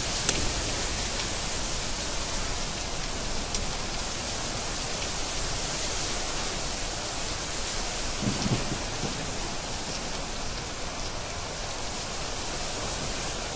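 Steady heavy rain falling, with a sharp crack just after the start and a short low rumble of thunder about eight seconds in.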